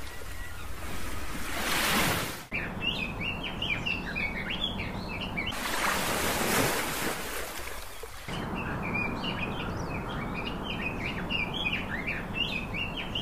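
Ocean surf washing in twice as rising and falling swells of noise, the first cutting off suddenly. Between and after the swells, many small birds chirp in quick high notes.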